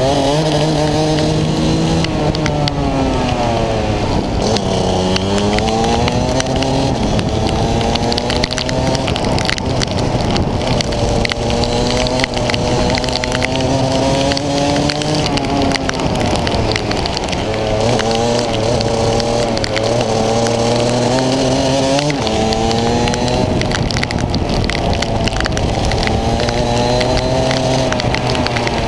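Rotax DD2 kart's 125cc two-stroke engine under racing load, its pitch climbing on the straights and dropping sharply under braking, deepest about five seconds in and again about twenty-two seconds in, then rising again. A steady hiss of rain and tyre spray runs beneath it.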